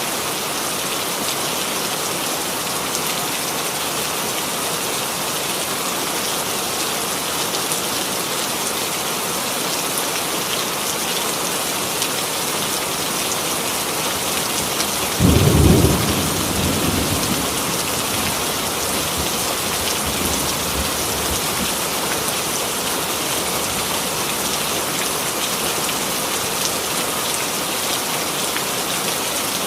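Steady heavy rain falling. About halfway through there is one sudden, loud, low clap of thunder that rumbles away over a couple of seconds.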